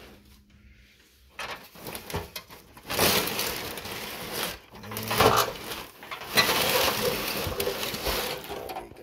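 Crumpled brown packing paper and cardboard rustling and crinkling as hands dig through a box of parts, in uneven bursts after a quiet first second or so.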